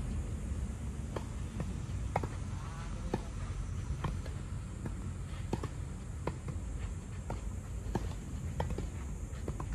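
Footsteps on a hard walking path, a sharp click about every two-thirds of a second at an even walking pace, over a steady low rumble.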